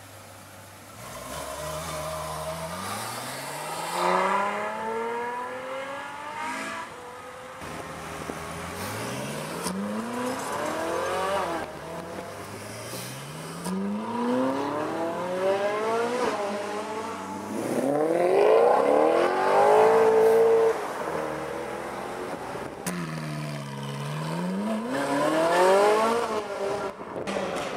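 Ferrari V8 sports cars, among them a 458 Italia, accelerating hard: the engine note climbs in pitch again and again, cut short by upshifts. It is loudest about two-thirds through. Near the end the note falls and then rises again.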